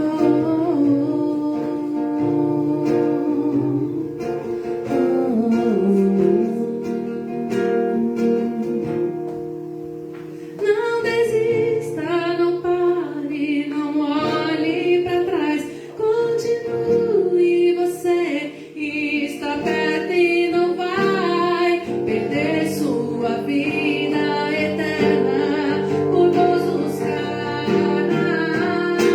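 A song sung to guitar accompaniment, the voice coming in strongly about ten seconds in.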